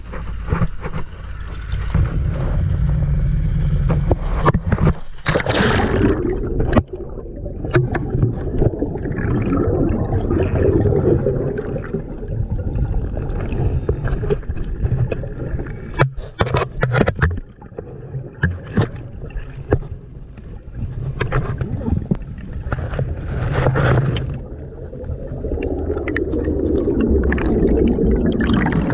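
Underwater sound heard through a submerged camera: a steady low rumble of water against the housing, broken by several sudden bursts of splashing and bubbles. In the last few seconds a dense stream of bubbles churns and gurgles right at the camera.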